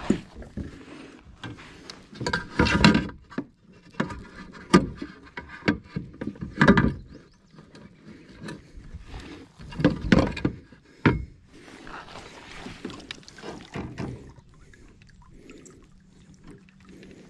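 Knocks, bumps and rubbing of gear being handled against a plastic fishing kayak, coming irregularly with louder clusters of knocks a few times and quieter toward the end.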